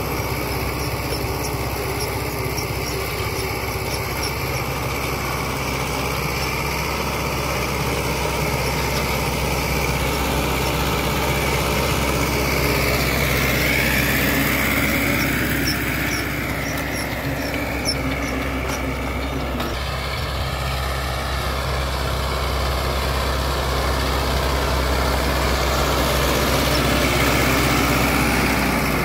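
HMT 5911 tractor's four-cylinder diesel engine running steadily under load while pulling an 18-disc harrow through tilled soil.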